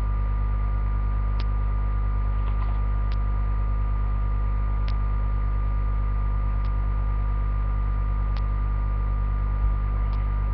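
Steady low electrical mains hum, with faint short ticks recurring about every second and three quarters and a soft bump near the end.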